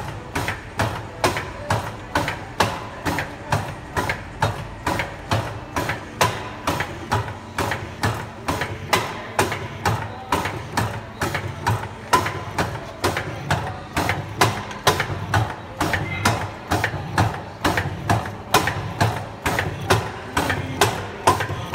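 MECO MEC 55 Basic CNC slotting machine cutting a keyway in a bore: the cutting ram strokes up and down about twice a second, each stroke a sharp knock over a steady machine hum.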